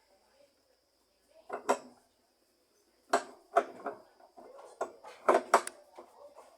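Loose metal washing-machine parts clinking and clattering as they are handled: one knock, then a quick run of several clinks and knocks a few seconds later.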